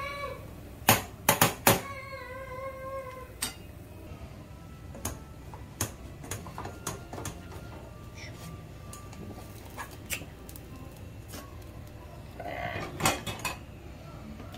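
Plastic spatula knocking and scraping against a small nonstick pan while a pancake is worked loose, turned and lifted out, a string of sharp clicks, a cluster about a second in and another near the end. Two short high-pitched cries sound in the first three seconds, the second held about a second.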